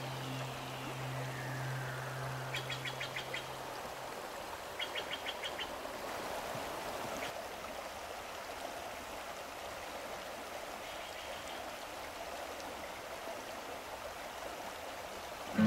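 Whitewater river rushing over boulders, a steady hiss, with two short rapid bird trills a few seconds in and a fainter one later. A low hum fades out about four seconds in.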